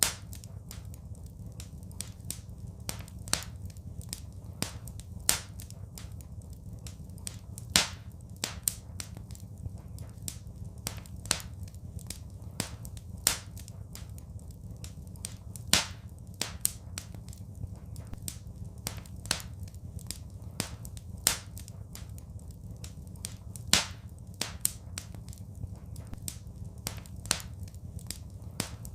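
Wood fire in a fireplace crackling, with frequent sharp pops and snaps over a steady low rumble. The loudest pops recur about every eight seconds.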